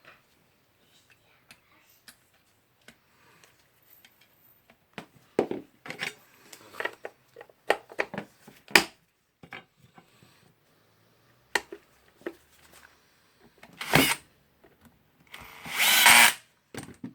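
Clicks and knocks of small parts and the plastic tool housing being handled while carbon brushes are fitted into a Hilti DCG 230-D angle grinder, with two short, louder noisy bursts near the end.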